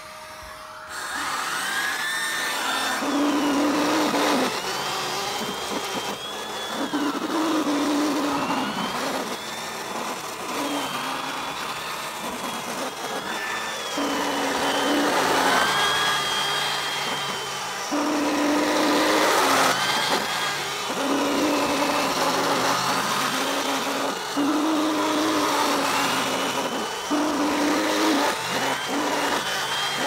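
Eureka Mighty Mite canister vacuum running with its floor brush head pushed back and forth over carpet. The suction rush and motor whine shift in pitch with each stroke. The sound gets louder about a second in as the head goes onto the carpet.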